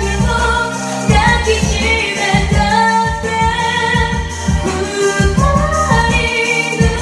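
A woman singing a Japanese pop song into a handheld karaoke microphone over the backing track, which has bass and a steady beat.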